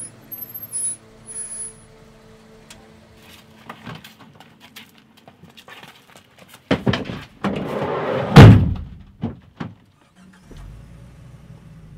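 A van's sliding side door rolling along its track and slamming about eight seconds in, the loudest moment. Scattered clicks and knocks come before it, and a few short high beeps sound near the start.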